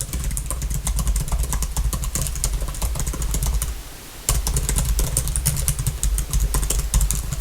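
Rapid, close-miked computer keyboard typing, a dense run of keystroke clicks with a deep low thud under them. It stops briefly about four seconds in, then carries on.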